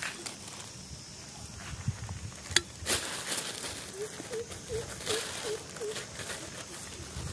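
Thin black plastic bag crinkling and rustling while hands knead crumbly dough bait inside it, with a sharp click about two and a half seconds in. Around the middle, a run of about six short chirping notes, evenly spaced.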